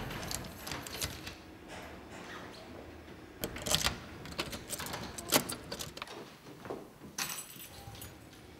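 An apartment door's lock and handle being worked: a run of scattered metallic clicks and knocks, with rustling near the end.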